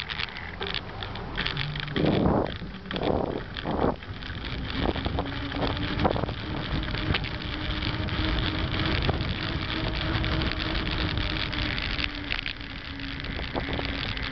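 Knobby Panaracer Rampage mountain-bike tyres whining on asphalt, a steady hum that sets in about four seconds in, over wind rushing on the handlebar-mounted microphone. There are a few loud gusts of noise in the first seconds and scattered rattling clicks from bumps.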